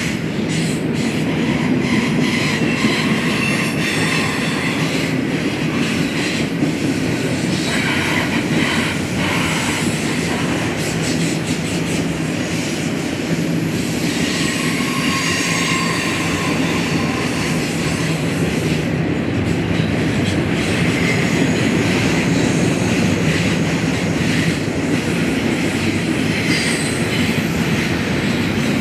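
A BNSF train rolling past close by: a steady rumble and rattle of cars on the rails, with repeated clicks of wheels over the track and brief faint squeals of wheels against the rail.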